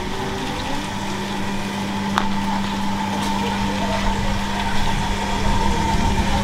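A steady motor hum over a noisy background, with a single sharp click about two seconds in and low rumble growing toward the end.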